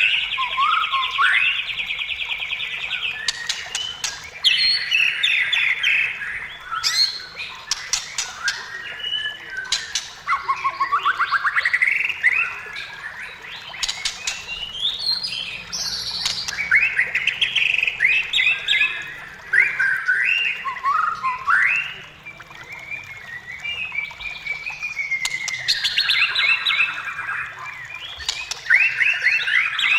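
White-rumped shama singing a long, varied song: fast buzzy trills, rapidly repeated notes, sweeping whistles and clicking rattles, with brief pauses between phrases.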